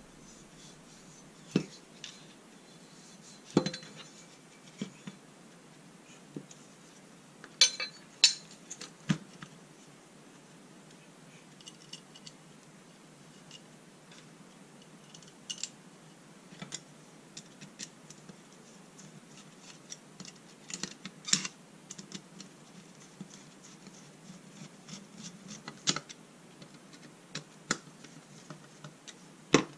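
Scattered clicks, taps and knocks of small metal parts handled on a workbench: a welded steel bracket, a small electric motor and its mounting screws picked up, set down and fitted together, with a screwdriver at work near the end.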